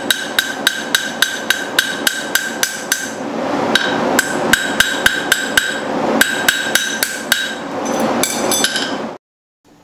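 Hand hammer striking a horseshoe on an anvil: quick, even metal-on-metal blows about four a second with a ringing tone, turning less regular after about three seconds, then cut off suddenly near the end.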